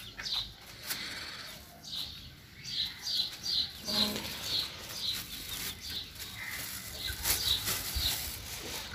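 Clear plastic bag crinkling and rustling as it is handled and opened out, louder near the end. Small birds chirp repeatedly in the background.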